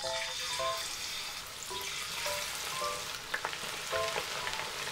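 Batter-coated fish deep-frying in oil at about 150–160 °C: a sizzle that starts at once as the fish goes in and runs on as a steady, dense bubbling hiss.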